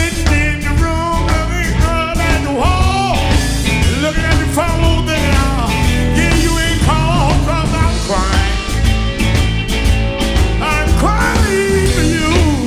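Live electric blues band playing: electric guitars with bending notes over bass guitar and a drum kit.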